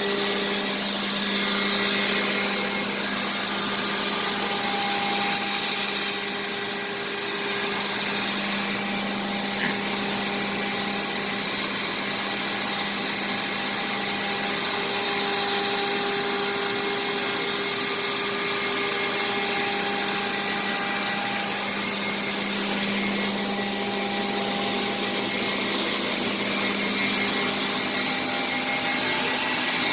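CNC router spindle running steadily with a whine while it cuts plastic sheet, with a hiss of cutting over it. The sound swells briefly twice.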